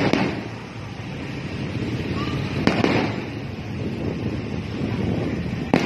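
Aerial fireworks shells bursting overhead: three sharp bangs, at the start, about halfway in and near the end, over a steady noisy background of the display.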